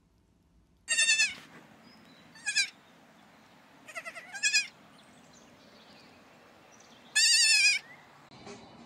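Goat kids bleating: five high, quavering bleats, a loud one about a second in, a short one a moment later, two together around four seconds, and a long loud one near the end.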